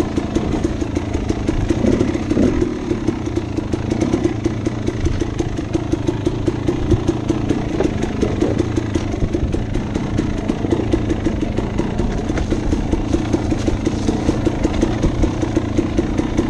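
Dirt bike engine running at low speed, with steady even firing pulses and a few brief throttle blips.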